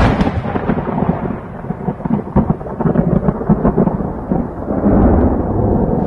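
Thunder sound effect: a sharp crack at the start, then crackling and rumbling, with a deeper rumble near the end.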